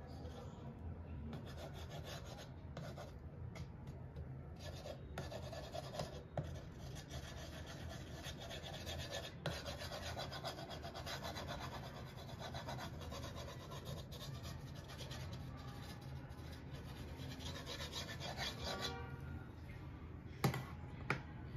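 A cloth pad rubbing back and forth along the edge of an MDF speaker-grille frame, spreading glue: a steady scratchy rubbing that stops about nineteen seconds in. Two short sharp knocks follow near the end.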